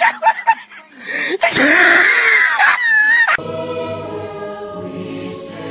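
Choppy clipped voice fragments, then a loud, harsh vocal for about two seconds, cut off abruptly into choral singing holding a sustained chord.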